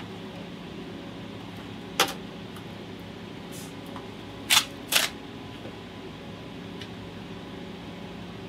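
Packaging being handled and torn open by hand over a steady low room hum: a sharp knock about two seconds in, then two short rips or crinkles of plastic wrapping about half a second apart.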